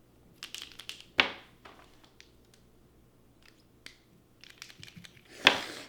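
A woman hiccuping twice, with sharp sudden gulps about a second in and again near the end, and faint clicking and rustling in between.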